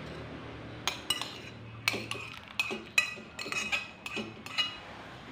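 A metal spoon clinking and scraping against a ceramic plate, about a dozen sharp ringing clinks, as leftover peanuts and garlic are scraped off the plate into a pot.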